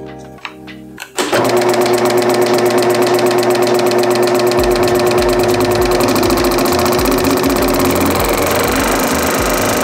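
Ryobi 16-inch scroll saw switched on about a second in, then running with the fast, even stroking of its reciprocating blade over a steady motor hum.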